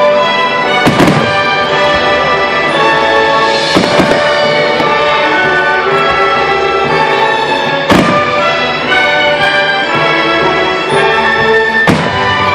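Orchestral music playing steadily, broken by four booms of aerial firework shells bursting about every four seconds, the third the loudest.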